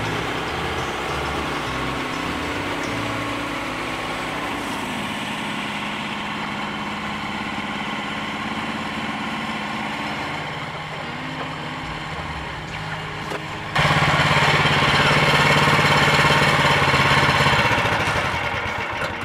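Woodland Mills HM130 bandsaw mill running, its gas engine humming steadily under load as the band blade cuts a narrow beech board. About 14 seconds in the sound jumps suddenly louder, then dies away near the end.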